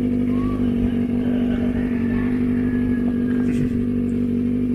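Kawasaki ZX-25R's 250 cc inline-four engine running steadily, its pitch holding constant without revving.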